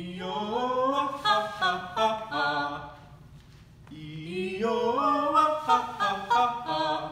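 Unaccompanied voices singing a short phrase that climbs in pitch step by step. The phrase comes twice, with a pause of about a second between.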